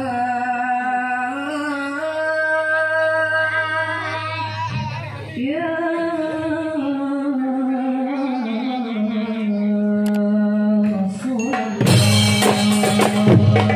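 A solo voice sings a slow, unmetered sholawat melody in long held notes that slide between pitches, over a low steady drone. Near the end the marawis frame drums come in with a fast, dense beat.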